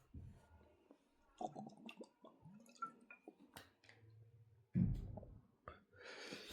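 A person drinking from a water bottle: faint clicks and handling of the bottle, a swallow just before 5 s in, and a breath out near the end.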